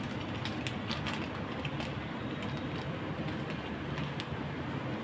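Foil sachet crinkling and crackling in the hands in short bursts, over a steady background rumble.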